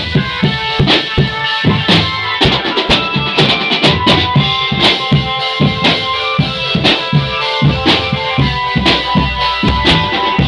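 Marching drum band playing: drums beat a steady rhythm under sustained melodic tones, with a quick run of rapid drum strokes about two and a half seconds in.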